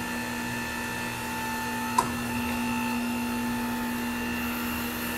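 Hunter Revolution tire changer's motor and drive running steadily with a hum as it demounts a tire, lifting the tire off the wheel. A single sharp click about two seconds in.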